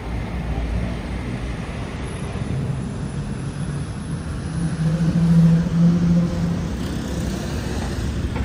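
New Routemaster hybrid double-decker bus pulling in and passing close by over a steady rumble of road traffic. It hums, rising slightly in pitch and loudest about five seconds in.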